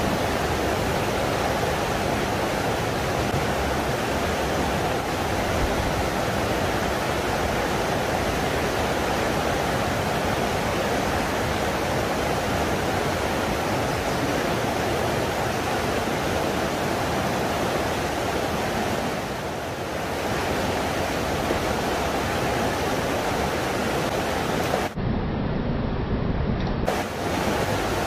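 Steady rushing of a fast, rocky mountain river, water running over and around boulders close to the microphone.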